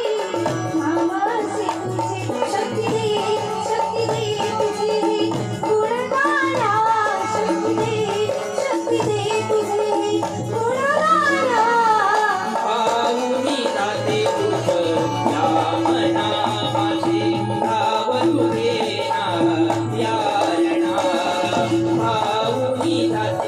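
Marathi folk devotional music: a hand drum and rattling percussion keep the rhythm under a melody that swoops up and down, with steadier held tones in the second half.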